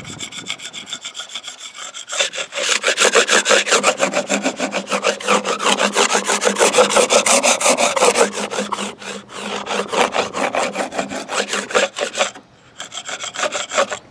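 Steel chisel scraping in quick repeated strokes across the gel coat of a fibreglass boat hull, opening tiny osmosis blisters. The scraping stops briefly near the end.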